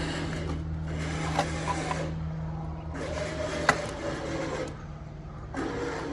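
Winch motor whirring in three pulls of a second or two each under load, hauling on an oak stump, over a steady low engine hum from the truck; a sharp click about three and a half seconds in.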